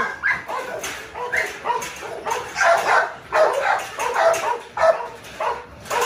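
Dogs in kennel cages barking over and over, a rapid string of barks about two to three a second.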